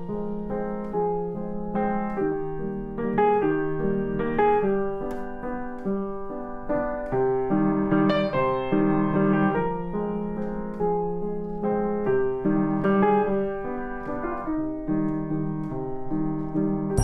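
Instrumental background music: notes and chords played at an even pace.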